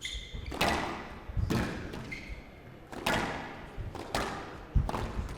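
A squash rally: the ball struck hard by rackets and smacking off the court walls, with sharp impacts about once a second that echo in the glass court. Short high squeaks, most likely court shoes on the floor, come near the start and about two seconds in.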